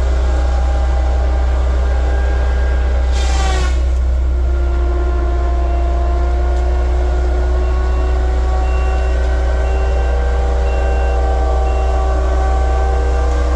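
Heavy logging machine's engine running steadily under load, a deep constant drone with tones that drift slowly up and down, and a brief burst of noise about three seconds in.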